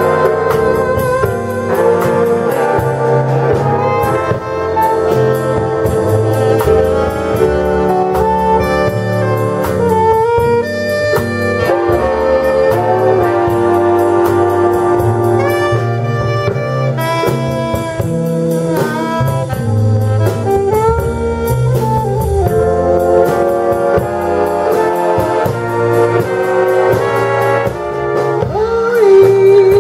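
Big band playing an instrumental passage, with saxophones and brass carrying the melody over a bass line.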